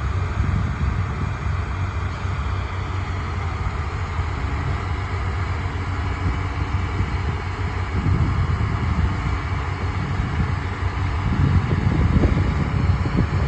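Liebherr R946 long-reach excavator's diesel engine running steadily, getting somewhat louder about eight seconds in and again near the end.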